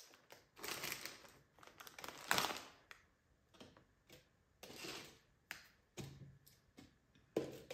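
Plastic party cups tapped down and slid on paper plates over a glass tabletop as they are shuffled: a dozen or so light, irregular clicks and knocks with a few short scrapes between them.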